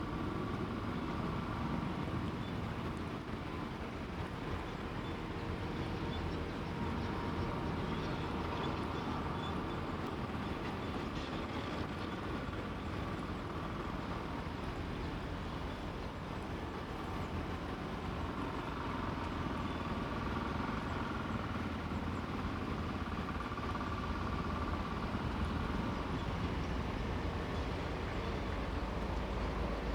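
Steady outdoor city ambience dominated by the low hum of road traffic, with no single event standing out.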